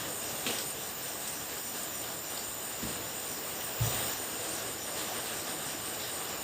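Steady high-pitched chirring of crickets or other night insects, with a few faint clicks and a soft low thump about four seconds in.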